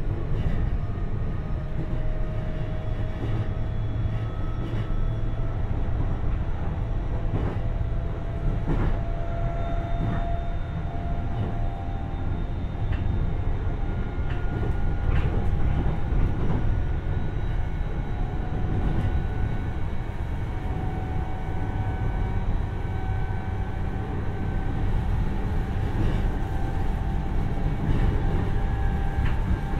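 E531-series electric train heard from inside its motor car while running: a steady low rumble of wheels on rail, with a motor whine of several tones slowly rising in pitch and a few scattered clicks from the track.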